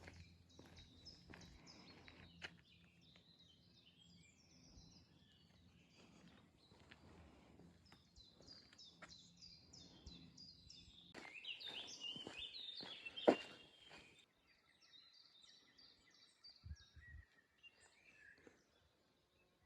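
Faint birds chirping and singing, with scattered light clicks and one sharper click about two-thirds of the way through.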